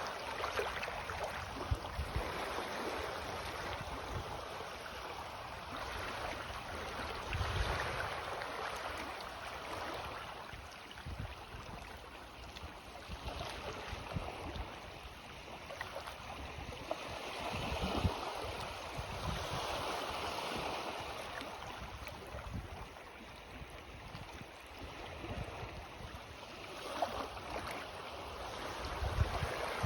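Small sea waves lapping and washing in on the shore on a rising tide, the wash swelling and fading every few seconds.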